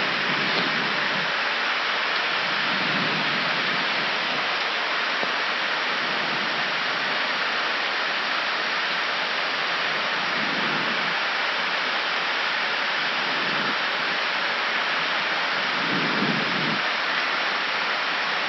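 Steady rushing background noise on the flight deck of an Airbus A319 in descent, the even rush of air around the cockpit holding at one level throughout.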